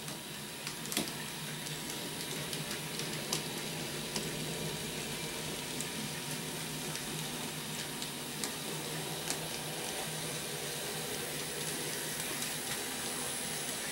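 N scale model freight train running on the layout track: a steady whirring hiss from the locomotive motors and wheels, with scattered light clicks, growing slightly louder as the train comes closer.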